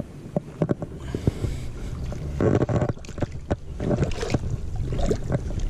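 Common carp splashing and thrashing in shallow water at the bank as it is grabbed by hand, in irregular splashes with two heavier bursts midway and near the end. Low wind rumble on the microphone underneath.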